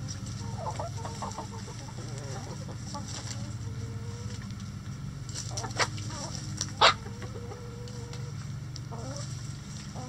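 Backyard chickens clucking softly as they forage, with a few drawn-out low hen calls, over a steady low hum. Two sharp sudden sounds come about six and seven seconds in, the second the loudest.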